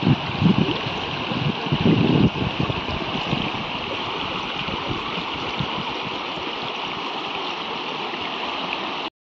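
River water rushing over rocks in shallow rapids, a steady even rush, with some low buffeting in the first two seconds. It cuts off suddenly near the end.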